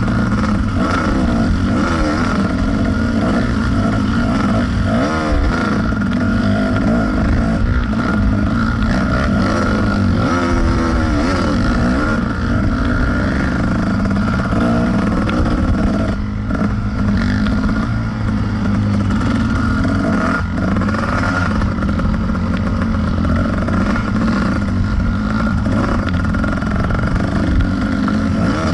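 Kawasaki KDX220 two-stroke dirt bike engine running hard under the rider, revs rising and falling with the throttle, with short throttle chops about halfway through.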